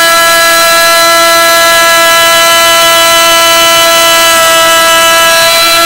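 Small benchtop milling machine running with its cutter in the work, giving a loud steady whine of several tones at once; the pitch shifts slightly a little after four seconds in.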